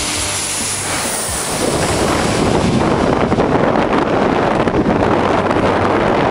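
Jet airliner passing low overhead on landing approach, its engine rush fading over the first second or so. About a second and a half in, a louder rough rushing roar takes over and stays.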